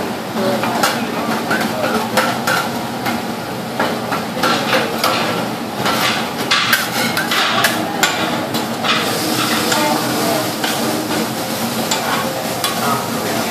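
Metal spatula and bench scraper scraping and clacking against a hot steel teppanyaki griddle, in quick repeated strokes, over food sizzling on the plate. The sizzle grows louder about nine seconds in.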